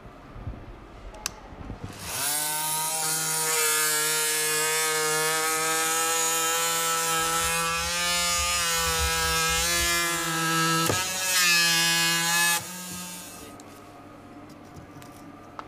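Festool Vecturo OS 400 oscillating multitool running and sawing into a kitchen worktop: a steady buzz with a high rasp, starting about two seconds in, briefly interrupted near the end, then switched off.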